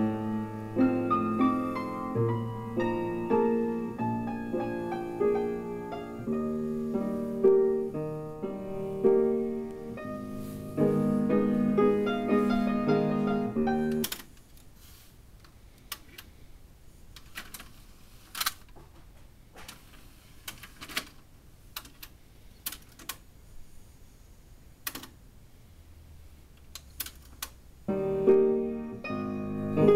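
Piano music playing back from a Marantz DD-82 Digital Compact Cassette deck cuts off suddenly about halfway through. A string of irregular sharp clicks follows as the deck's front-panel transport buttons are pressed, and near the end the piano music starts again.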